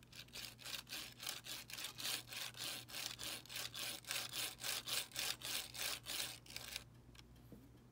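Brass N scale Shay truck rasping with each roll as it is pushed firmly back and forth along the track by a finger, its geared wheels forced into mesh, a few strokes a second. This is a tuning step to free up the gears so the truck rolls freely. The strokes stop about seven seconds in.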